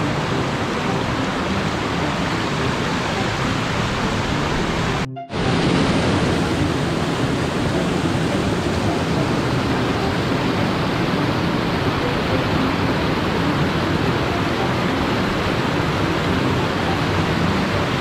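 Rushing water of a small mountain stream pouring over rocks in a cascade, a steady loud rush, broken by a momentary dropout about five seconds in.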